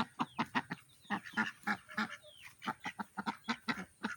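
Farm ducks and other poultry calling in a rapid run of short notes, about five a second.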